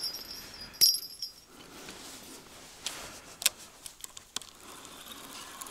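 Small metal clinks and jingling as fishing tackle is handled. A sharp click with a brief high ring comes about a second in, followed by a few faint scattered ticks.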